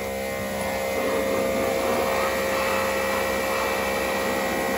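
Greenworks 2300 PSI brushless electric pressure washer running steadily: a held motor whine under the hiss of the water jet hitting the truck's body.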